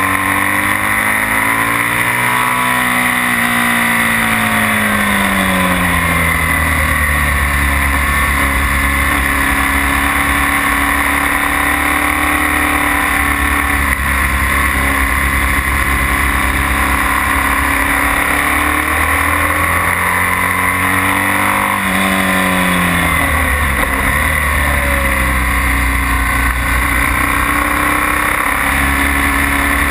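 BMW R1200S boxer-twin engine running hard while the bike laps a circuit. Its pitch rises and falls as the rider accelerates and backs off, once in the first few seconds and again around twenty seconds in, over a steady rush of wind.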